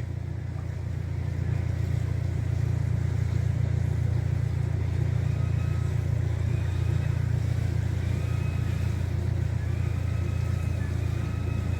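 Hydraulic machinery of a powered Thames lock closing the gates: a steady low mechanical hum, a little louder from about a second in, with a faint higher whine coming and going in the second half.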